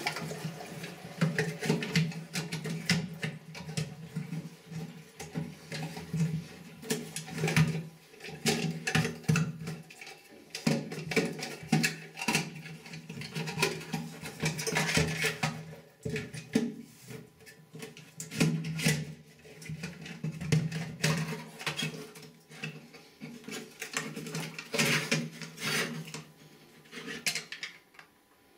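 Plastic parts of a Geberit concealed cistern's flush valve assembly being unclipped and worked loose inside the tank: irregular clicks, knocks and scrapes with some water sounds, quieting near the end as the valve comes out.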